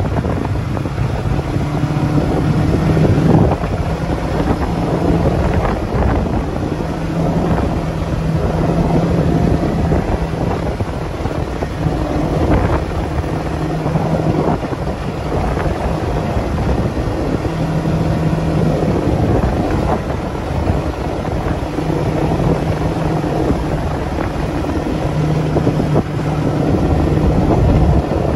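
Engine of an off-road vehicle running on board as it rides a dirt track, its tone steadying and dropping away in stretches, with wind buffeting the microphone.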